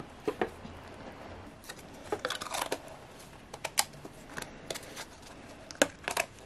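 Plastic containers being handled: a small clear plastic tub knocking and clicking against the floor and sides of a larger hard plastic tub as it is set down, in scattered clusters of sharp taps, the sharpest few about six seconds in.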